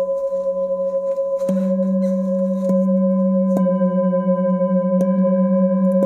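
Metal singing bowls struck in turn with a mallet, four strikes about a second apart, each adding a new ringing tone over the sustained ring of the others. The low tone wavers in a slow pulse.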